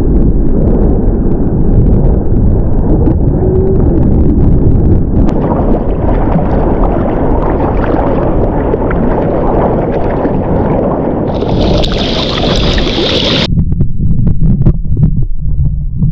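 Water rushing and splashing with wind buffeting an action camera's microphone at the surface of the sea: a loud, steady wash of low noise that changes abruptly a few times, with a brighter hiss for a couple of seconds just before it drops to a low, muffled rumble.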